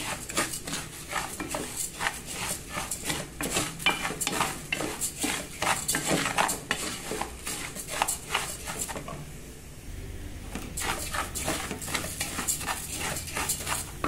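Wooden spoon stirring raw rice in a metal pot, scraping the pot and turning the grains in quick repeated strokes, about two a second, while the rice sautés in hot oil with a light sizzle. The strokes pause briefly about nine seconds in, then start again.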